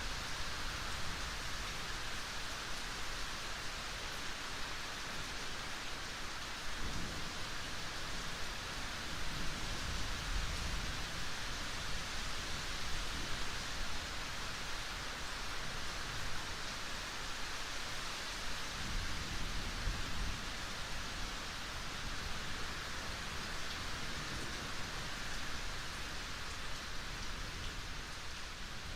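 Steady rain falling, an even hiss, with low rumbles of thunder swelling about seven seconds in and again about nineteen seconds in.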